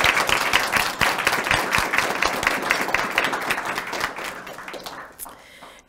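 An audience applauding, many hands clapping together, dying away near the end.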